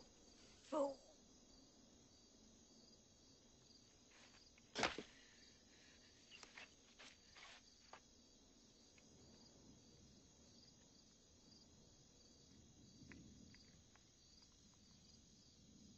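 Faint night ambience of crickets chirping steadily. A short vocal sound comes just under a second in, a single sharp knock about five seconds in, and a few light clicks between six and eight seconds.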